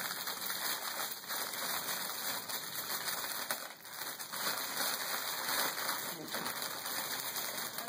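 Clear cellophane basket wrapping crinkling and rustling as a child's hands grip and pull at it, a continuous crackly rustle with a few sharper crackles.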